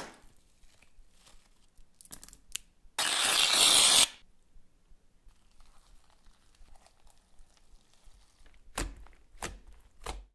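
Hands squeezing and pressing slime, with faint crackles throughout. About three seconds in comes a loud, rough tearing noise lasting about a second. Near the end there are three sharp crackling pops as fingers press into fluffy pink slime.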